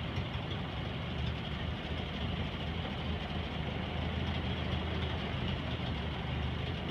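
1929 Ford Model AA truck's four-cylinder flathead engine idling steadily, freshly rebuilt.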